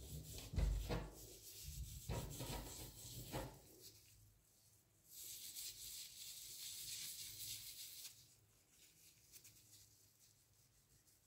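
Steel wool scrubbing the engraved surface of a small brass vase. Handling knocks and rubs come in the first few seconds, then a steady hiss of scrubbing lasts about three seconds past the middle, and fainter rubbing follows.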